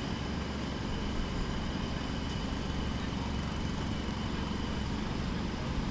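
Distant jackhammer pounding steadily, heard as a continuous rapid low rattle.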